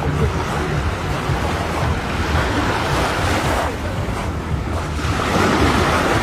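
Sea waves washing in, with wind buffeting the microphone as a low rumble. The water noise swells about three seconds in, drops away sharply, and swells again near the end.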